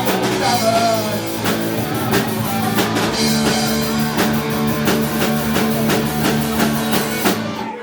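Live rock band with electric guitars and a drum kit playing the instrumental close of a punk-rock song, the drums beating steadily under held guitar and bass chords, then stopping abruptly near the end.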